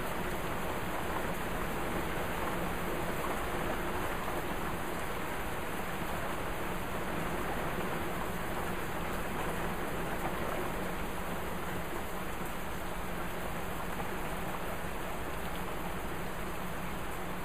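Heavy thunderstorm rain pouring steadily, a constant even hiss of downpour with no let-up.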